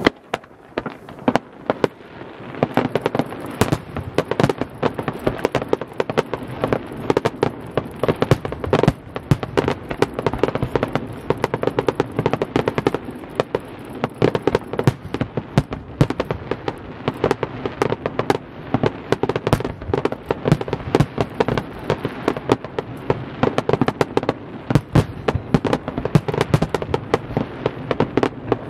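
Fireworks display in a dense barrage: aerial shells bursting one on top of another, an unbroken string of bangs several times a second.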